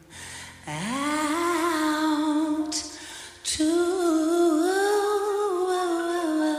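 A woman singing softly in long held notes with vibrato. The first note slides up into place about a second in, there is a quick breath about halfway through, and then a second long phrase follows.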